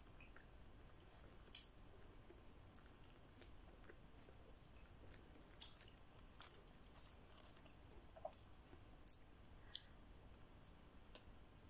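Faint close-up chewing and mouth clicks of a person eating a burger, with a few sharper clicks standing out, one about a second and a half in and two close together near the end.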